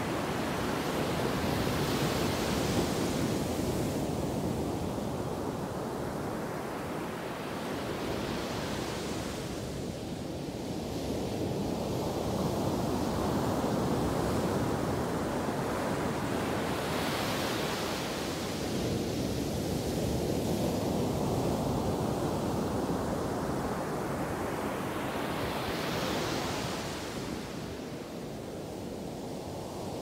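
Ocean surf crashing on a beach: four breakers, one about every eight seconds, each swelling into a hissing crash and then washing away beneath a continuous roar of surf.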